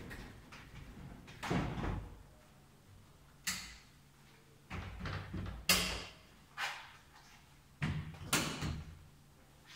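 A series of sharp knocks and bangs, about seven spread over several seconds, as a work shed's wooden cabinets and roll-out drawer cabinet are pushed shut and put away.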